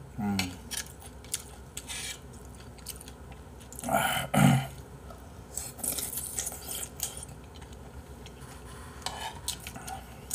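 Eating sounds: a metal spoon clicking and scraping against a bowl, with chewing of a spoonful of jjamppong rice soup. A brief voiced sound from the eater comes about four seconds in.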